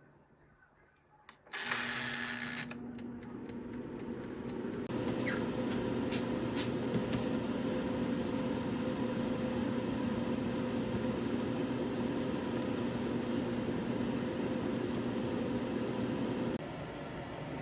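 A kitchen appliance running with a steady electric hum, after a short burst of hiss at its start; the hum cuts off suddenly near the end, with a few light clicks along the way.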